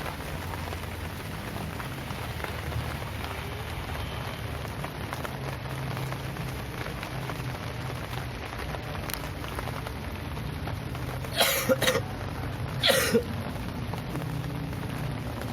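Steady rain falling. About eleven seconds in, a person coughs three times in quick succession, loud over the rain.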